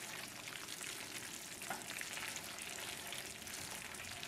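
Roux of vegetable oil and flour frying in a heavy-bottomed sauté pan, a faint steady sizzle with a few light ticks.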